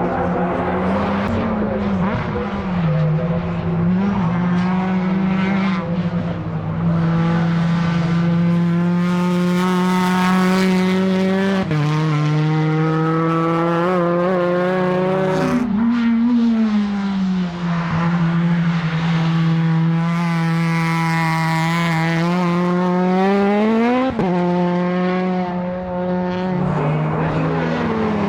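A time-attack race car's engine at full effort on track, its note climbing and dropping several times as it accelerates, shifts and lifts for corners, with a sharp rise in revs and a sudden drop about three-quarters of the way through.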